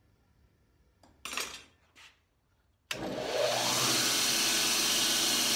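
Near silence with two brief faint noises, then about three seconds in a 2x72 belt grinder starts abruptly with a rising whine and runs steadily as the forged 1095 steel knife blank is ground against the abrasive belt to profile it.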